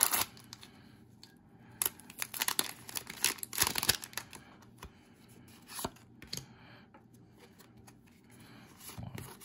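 Foil Pokémon booster-pack wrapper tearing and crinkling as the pack is opened, in several loud bursts over the first four seconds, followed by quieter rustling and a click as the cards are handled.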